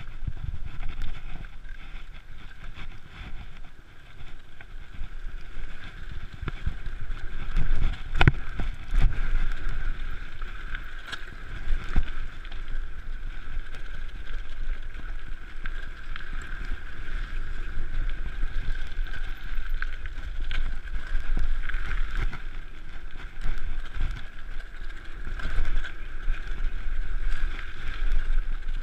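Mountain bike descending a gravel forest trail at speed: wind on the microphone over the steady rumble and rattle of tyres on loose gravel, with a couple of sharp knocks from bumps in the trail.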